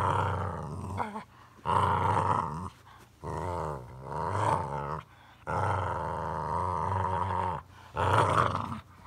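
A dog growling in a run of drawn-out calls that bend up and down in pitch. There are about six of them with short gaps between, and the longest lasts about two seconds.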